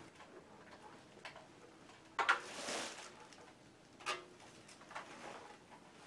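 Handling noise from a plastic computer speaker being picked up and brought to the monitor: a sharp knock with a short scraping rustle about two seconds in, another knock about four seconds in, and softer rustles after it.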